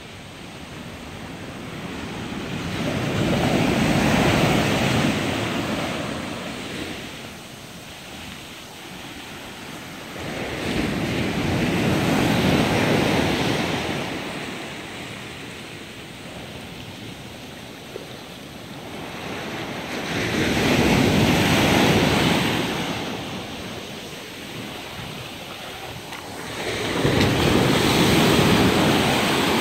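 Sea surf breaking and washing up a small sandy cove: four surges about eight seconds apart, each swelling and fading. In the last surge the waves splash against rocks at the water's edge.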